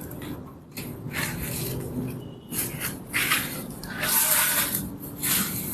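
Irregular rustling and scraping swishes, four or five of them, each lasting under a second.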